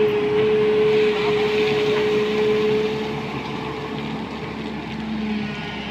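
SANY hydraulic excavator's diesel engine and hydraulics running, with a steady high whine over the engine note that fades and gets quieter after about three seconds.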